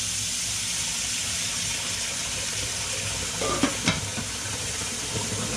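A steady high hiss in a kitchen, with two sharp clicks a moment apart a little past halfway through.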